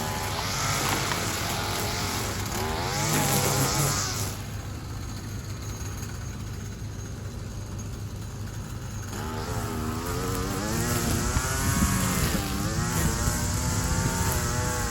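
Small two-stroke engine of a gas string trimmer (weed eater) running and revving up and down as it cuts, easing back to a lower, quieter speed for a few seconds in the middle before speeding up again.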